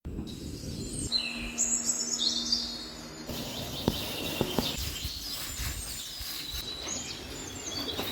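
Small birds chirping and singing over outdoor background noise, with abrupt changes in the background about one and three seconds in and a couple of sharp clicks near the middle.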